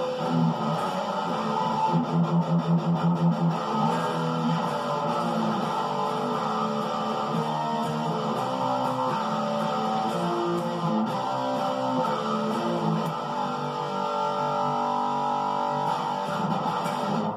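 ESP LTD EC-10 Les Paul-style electric guitar with humbucker pickups, played through an amplifier with distortion: sustained distorted chords and riffs, with a run of fast repeated picked notes about two seconds in. The playing stops at the end.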